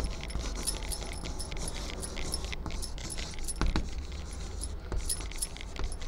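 Chalk writing on a chalkboard: irregular light taps and scratches as letters are formed, with a sharper tap a little past the middle.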